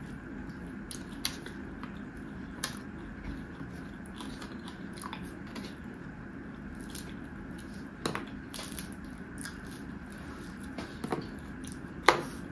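Close-miked chewing and wet mouth sounds of someone eating rice and fried fish by hand, with scattered small clicks and smacks over a steady low hum; the sharpest click comes near the end.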